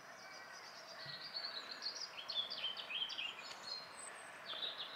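Small birds singing in quick, high chirping phrases over a faint steady background hiss; the song is busiest between about one and four seconds in.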